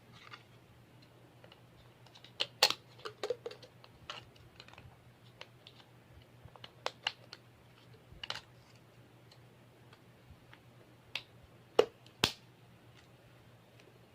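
Irregular sharp clicks and taps of small hard objects being handled, loudest about two and a half seconds in and twice near the end, over a faint steady low hum.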